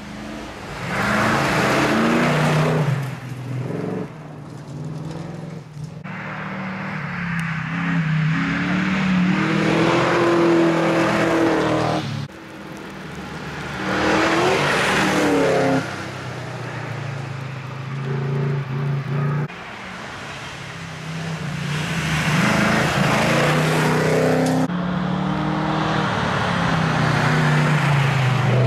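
Plymouth Valiant rally car at speed on a gravel stage, passing several times: its engine revving up and falling back as it swells in and fades, with the hiss of tyres on gravel. The sound changes abruptly between passes.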